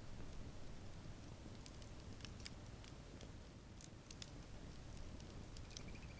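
Wood campfire crackling softly: scattered small snaps and pops over a low steady rumble.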